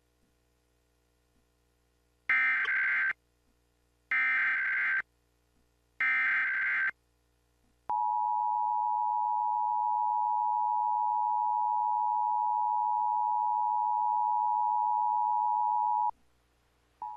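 Emergency Alert System test: three short bursts of SAME header data, a modem-like screech repeated three times, followed by the EAS attention signal, a steady two-tone alarm held for about eight seconds that cuts off sharply. A brief blip of tone comes near the end.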